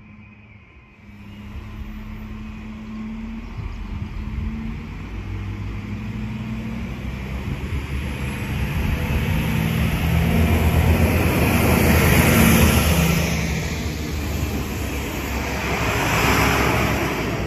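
Arriva Alstom Coradia LINT 41 diesel multiple unit with its diesel engines working under power, puffing exhaust smoke as it pulls through the station. The engine drone grows louder from about a second in, peaks as the railcar passes close, and swells again near the end.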